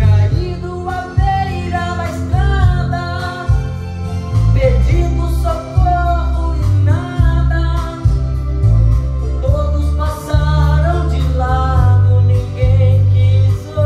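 Man singing a Portuguese gospel hymn into a handheld microphone over instrumental accompaniment with a strong bass line.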